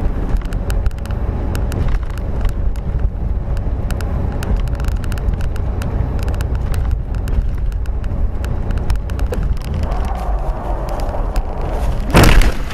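Car driving, heard through a dashcam: a steady low rumble of engine and road with frequent small clicks and rattles, then a sudden loud bang near the end.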